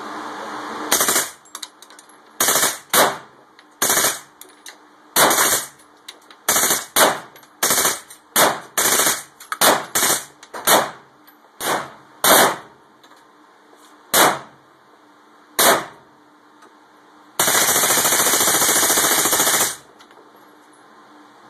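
9mm AR-15 carbine firing in an indoor range: about eighteen single shots at uneven intervals, half a second to two seconds apart, then near the end a rapid burst lasting about two and a half seconds in which the shots run together.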